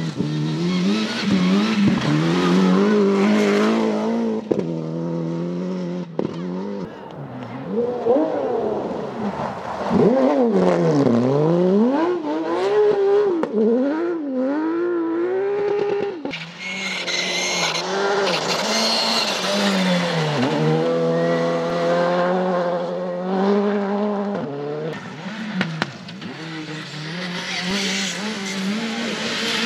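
Rally cars at speed on a gravel stage, one after another, engines revving hard with pitch rising and falling through gear changes and braking, and a hiss of tyres and thrown gravel at times.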